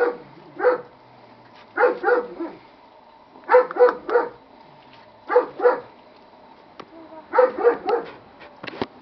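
Dog barking in short runs of two or three high barks, a new run every second or two.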